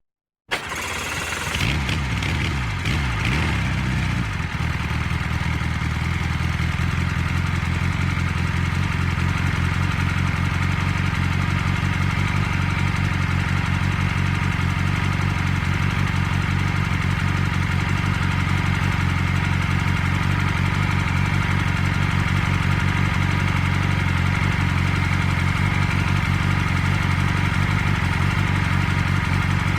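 Car engine cranked by the starter and catching about half a second in, its speed falling over the next few seconds as it settles into a steady idle.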